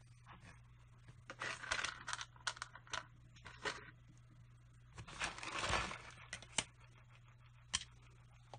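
Small objects being handled on a workbench: scattered sharp clicks and two stretches of rustling, over a low steady hum.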